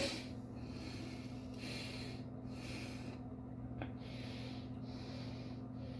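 A person breathing in and out through the nose, soft breaths about once a second, with one light click past the middle.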